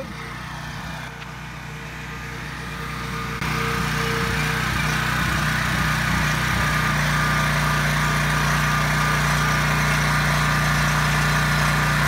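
Coleman Powermate 3500-watt open-frame generator with a Subaru engine running at a steady, unchanging speed, getting louder about three and a half seconds in as it is approached. It is carrying a 1500-watt heat gun load, and the engine note stays the same under it: an open-frame generator runs at fixed speed whatever the demand.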